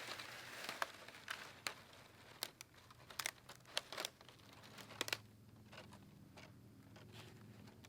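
Small fire just catching in dry tinder and twigs, crackling with irregular sharp snaps that thin out after about five seconds.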